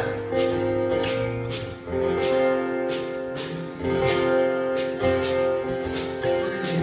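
Guitar strumming held chords, with a new chord struck every second or two.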